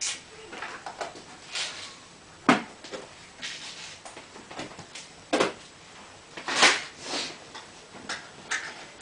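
Scattered knocks, clicks and rustling in a small room. Two sharper knocks come about two and a half and five and a half seconds in, and a louder rustle comes near seven seconds.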